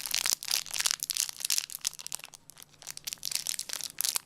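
Packaging crinkling and rustling in the hands, a run of quick, irregular crackles.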